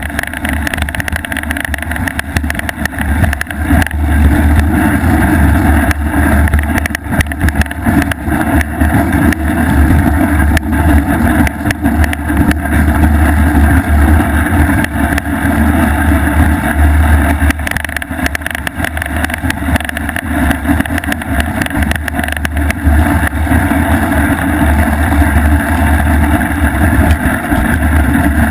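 Loud, steady low noise with dense rattling from an action camera mounted on a mountain bike's front fork while riding over packed snow: the vibration of the knobby front wheel and fork comes straight through the camera body. The uploader puts the unpleasant sound down to a small loose part rattling inside the camera.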